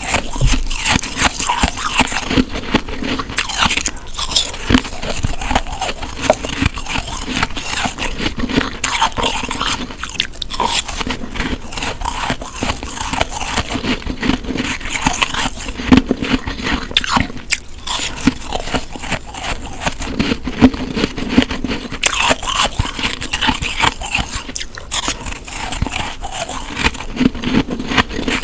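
Close-miked bites into packed snow: a continuous run of crisp crunching and crackling as the teeth break through it, one bite after another.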